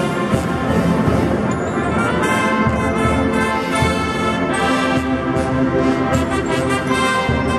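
Brass band music, with trombones and trumpets playing held notes and chords that change every second or two.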